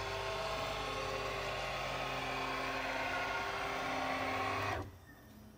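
JMC iHSV57 100-watt servo motor spinning the Taig CNC mill's 20 TPI leadscrew at about 3000 RPM, driving the table in a 150 inches-per-minute traverse: a steady whir with several even tones, which stops abruptly near the end as the move finishes.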